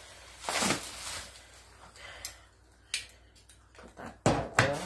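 Bubble wrap and plastic packing rustling and crinkling as it is pulled and torn away by hand, in a few separate bursts, with a louder burst of handling noise near the end.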